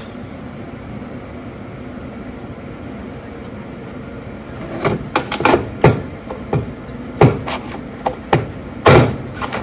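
Steady background hum, then from about five seconds in an irregular run of sharp crunches and cracks as a paper-cutter blade is forced down through a fully charged sodium-ion battery cell; the loudest cracks come near the end.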